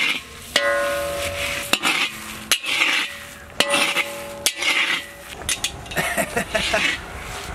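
Metal spatula stirring and scraping dry coriander seeds and dried red chillies in a large iron kadai. Five sharp clanks of the spatula against the pan, two of which leave the pan ringing for about a second.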